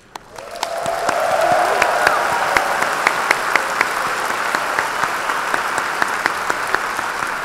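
Large audience applauding, swelling over the first second and then holding steady, with a few sharper single claps standing out above the rest.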